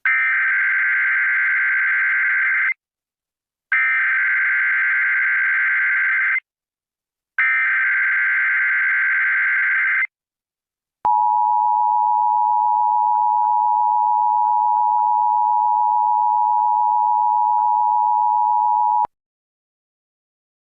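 Emergency Alert System header: three identical bursts of harsh, buzzing SAME data tones, each almost three seconds long with a one-second pause between them. After a short gap comes the steady two-tone attention signal, held for about eight seconds before it cuts off sharply.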